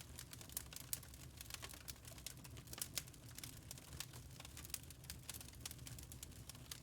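Wood fire crackling in a fireplace: irregular small snaps and pops over a low steady rumble of the flames.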